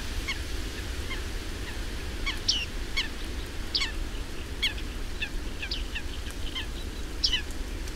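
Bearded reedlings (bearded tits) calling: short, slightly down-curving calls, repeated irregularly about twice a second, over a steady low rumble.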